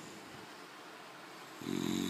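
Snoring: a quiet pause between breaths, then a loud, pulsing snore starts about a second and a half in.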